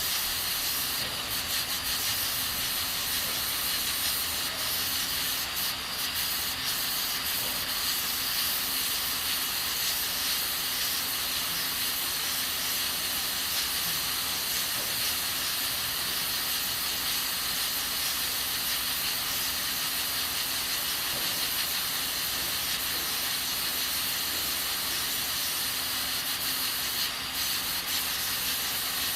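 Aluminium pressure cooker hissing steadily as steam escapes through its valve while beans cook on a gas stove.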